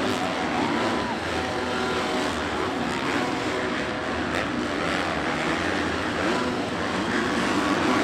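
Several supercross dirt bike engines revving up and down as a pack of bikes races around the track, with many overlapping engine notes rising and falling.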